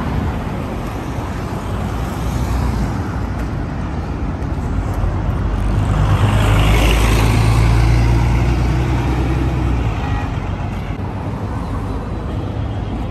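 A city bus passing close by over steady road traffic. Its engine hum swells about five seconds in, is loudest around seven seconds, and fades a few seconds later.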